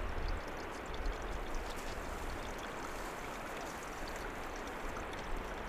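Steady rush of running water from a mountain stream, with a low rumble underneath.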